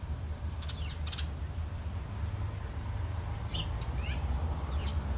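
Several short, high calls with quick downward slides from a fledgling bird, a young bird calling near its parent, over a steady low hum.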